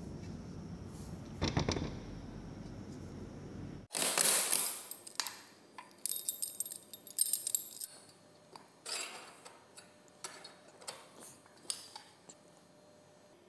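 Steel tools and motor parts clinking against each other: a run of sharp metallic clinks with a high ringing after them, while a bearing puller and steel pipe are worked on an induction motor's rotor shaft. Before the clinks there are a few seconds of low rumble with one knock.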